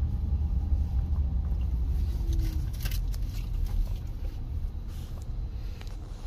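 Low, steady rumble of a car's engine and tyres heard from inside the cabin as it drives slowly, with a few faint clicks about halfway through.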